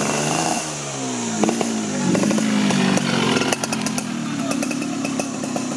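Small motorcycle engines revving, their pitch rising and falling repeatedly, with a short run of sharp crackles about three and a half seconds in before they settle to a steadier running note.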